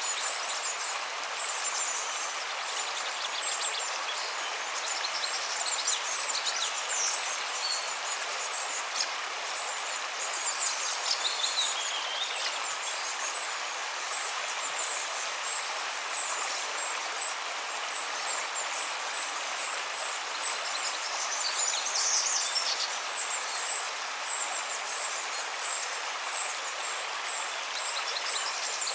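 River flowing with a steady rush of water, with small birds chirping and trilling high above it throughout; one call slides downward about twelve seconds in, and a burst of calls comes a little past twenty seconds.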